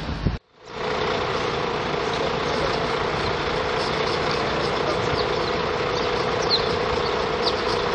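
A vehicle engine idling with a steady droning hum and street noise. A few faint short high chirps come in the second half.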